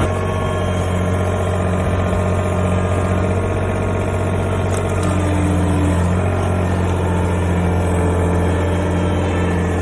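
Komatsu PC10-7 mini excavator's engine running steadily at an even speed.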